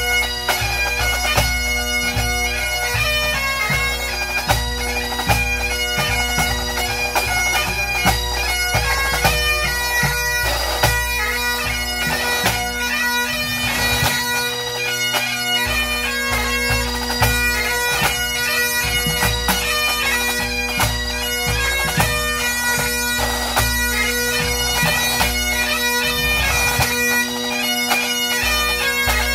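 Pipe band playing: Great Highland bagpipes sounding steady drones under a chanter melody, with snare, tenor and bass drums beating along.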